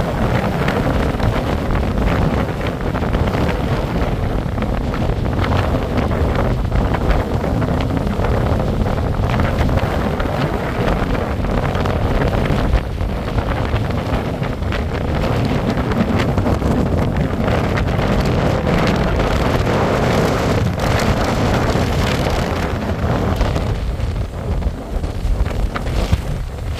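Strong wind buffeting the microphone without letup, over the wash of waves breaking on a shingle beach.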